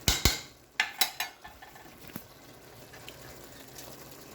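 Metal utensil clinking against dishware while serving cooked food: about five sharp clinks in the first second and a half, and one more about two seconds in.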